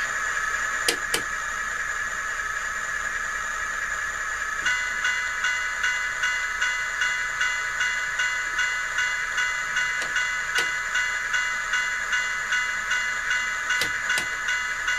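DCC sound-decoder diesel locomotive sounds from an HO-scale Athearn GP38, played through a small temporary test speaker: a steady idle with a few sharp clicks. About five seconds in, a ringing that pulses about twice a second joins in.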